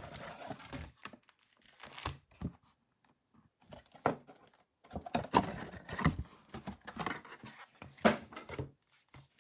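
Foil wrapper of a Topps Holiday baseball card pack crinkling and tearing as it is opened, with the cards handled; irregular crackling comes in several spells with short quiet gaps between.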